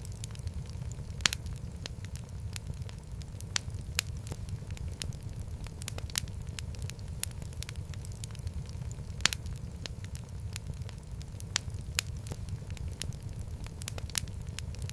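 Wood fire burning in a fireplace: a steady low rumble of flames with irregular sharp crackles and pops, a few of them louder.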